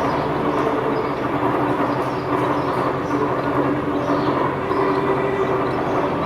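Imor metal lathe running under power, its headstock gearing giving a steady mechanical hum with several held tones and a rough rattle that swells about once a second.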